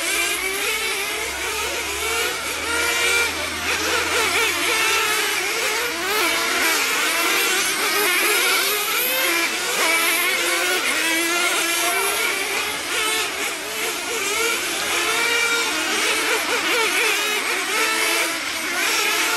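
Several nitro-engined radio-controlled race cars running on the track, their small glow-fuel engines buzzing and revving, the overlapping pitches rising and falling continually as the cars accelerate and brake.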